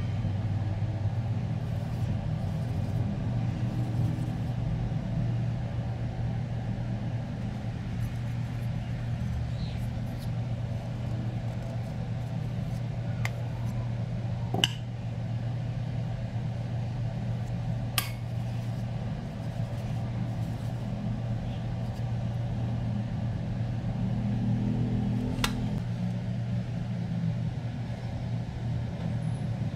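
A steady low hum, with a few sharp clinks of a utensil against a steel mixing bowl and a metal baking pan while cookie dough is scooped and shaped.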